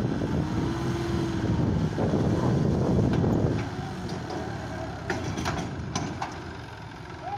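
John Deere tractor's diesel engine labouring under load, working the thresher through wet ground, then easing off about halfway through. A few sharp clicks sound near the end.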